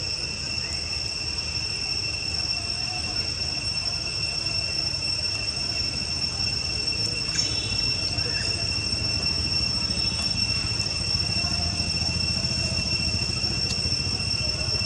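Steady high-pitched insect drone, one continuous whine that never breaks, over a low steady rumble.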